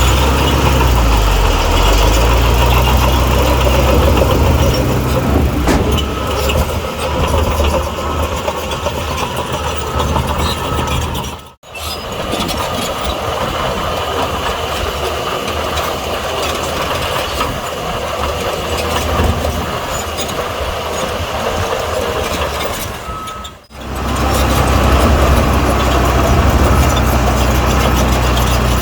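Heavy diesel engines of earthmoving machinery running steadily under work. The sound drops out briefly twice, about twelve and twenty-four seconds in, and resumes each time.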